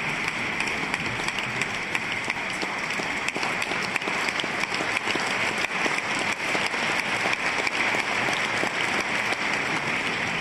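Large concert-hall audience applauding steadily.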